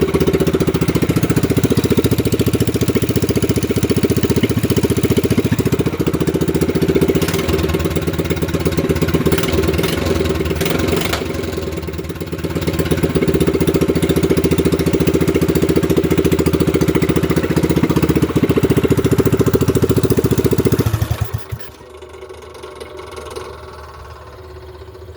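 A 196cc single-cylinder four-stroke mini bike engine running steadily, with a short sag in loudness about halfway through, then shut off about 21 seconds in, dying out within a second.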